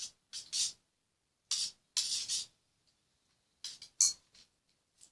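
Homemade detergent-and-glue slime being squeezed and stretched by hand, making short wet, sticky crackles in about six or seven separate squelches, the loudest about four seconds in.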